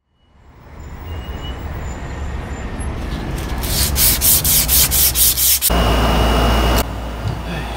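Abrasive cloth strip being pulled back and forth around a steel axle, rasping in quick even strokes about three a second, cleaning the axle so the bearings will slide off. Near the end, about a second of loud steady hiss.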